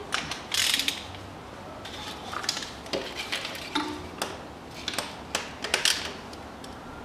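Hand ratchet wrench clicking in short, irregular spells, with a few metallic knocks, as a starter mounting bolt is undone.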